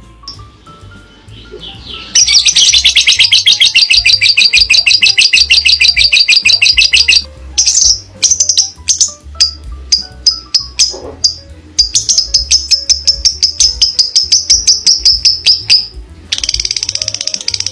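A parrot calling loudly in long runs of rapid, shrill, repeated chirps lasting several seconds, with scattered single chirps between the runs, over background music with a steady beat.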